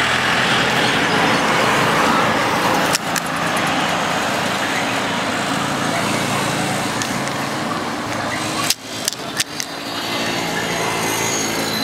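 Steady street traffic noise, with a vehicle engine running close by, broken by a few short clicks about three seconds in and again around nine seconds.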